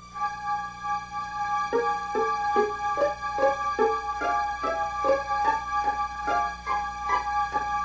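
Background music on a keyboard: short struck notes at about two or three a second over held higher tones.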